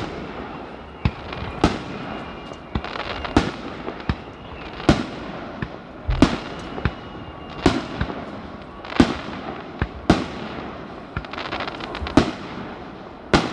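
Aerial fireworks shells bursting in a steady run, a sharp bang about every second and a half, with crackling in between.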